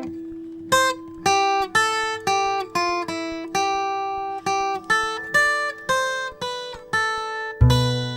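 Acoustic guitar picking a slow single-note melody over a ringing held note, then a full strummed chord near the end: the instrumental close of a comic song.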